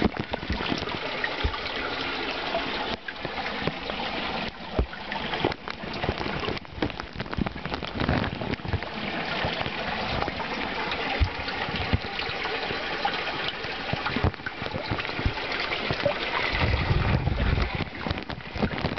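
Warm spring water rushing and splashing close by as a current runs into a small cave under a waterfall, with frequent knocks and a brief low rumble near the end.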